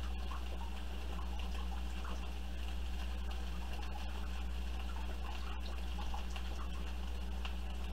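Soy sauce pouring from a bottle into a glass bowl, a thin trickle of liquid, over a steady low hum.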